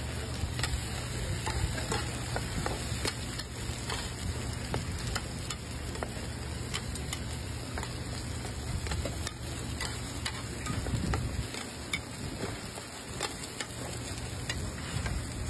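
Egg and oysters sizzling on a hot griddle, a steady frying hiss with many sharp crackles. A low hum runs underneath and drops out about three-quarters of the way through.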